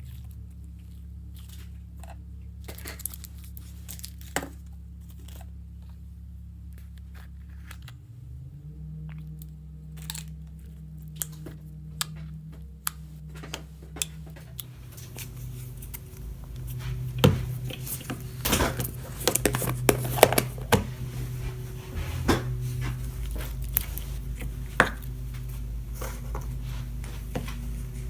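Close handling sounds: crinkling and tearing with scattered sharp clicks, growing busier and louder about halfway through, over a steady low drone.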